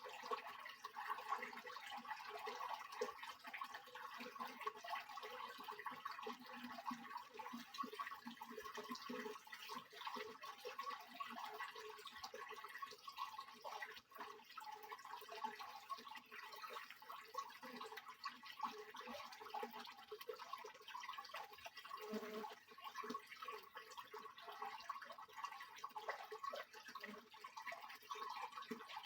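Water sloshing and splashing continuously inside a Soviet washing machine as it churns a wash load, a dense, irregular patter of small splashes.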